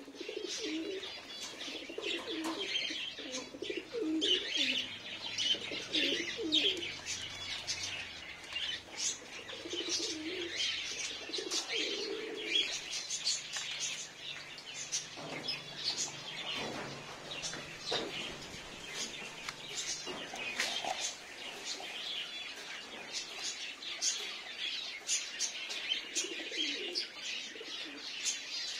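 Domestic pigeons cooing in repeated low bouts, over steady high chirping of small birds, with a few wing flutters about halfway through.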